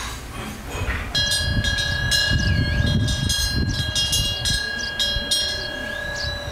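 A hanging metal wind bell under the eaves is struck about a second in and rings with a long, sustained tone of several unevenly pitched overtones. Short chirping glides sound above it, with a low rumble of wind on the microphone.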